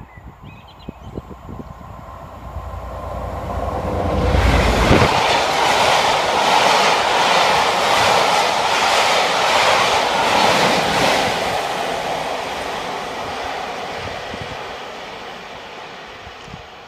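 Diesel-hauled passenger train passing at speed. A low rumble swells as the locomotive goes by about four seconds in, followed by the coaches' wheels clattering in a steady rhythm, which slowly fades as the train draws away.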